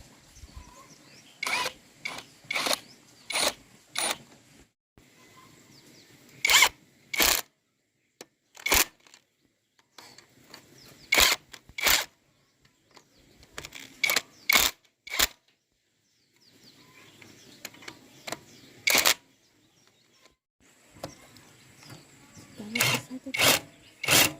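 A series of sharp knocks or clicks, coming irregularly in small clusters of two to four, with short pauses between the clusters.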